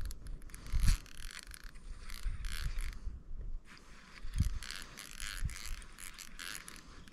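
Fishing reel being cranked in spurts, a rapid mechanical clicking from its gears, with a few low thumps.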